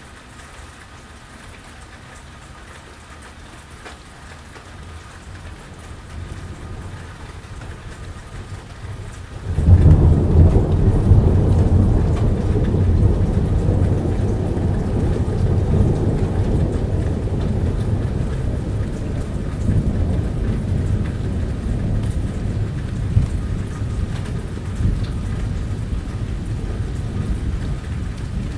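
Steady rain during a thunderstorm, with a long roll of thunder. A low rumble builds, breaks loud about a third of the way in, and keeps rumbling.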